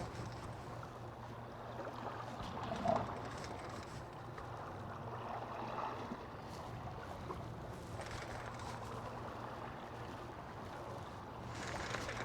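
Small fishing boat under way at trolling speed: a steady low engine hum with water and wind noise, and a brief louder knock or splash about three seconds in.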